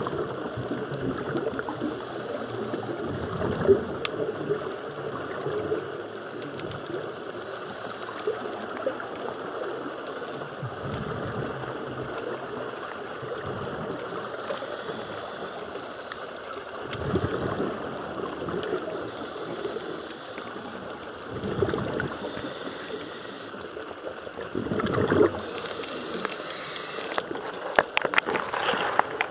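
Scuba regulator breathing underwater: a faint hiss on each inhale and a bubbly rush on each exhale, repeating every five or six seconds. A few sharp knocks near the end.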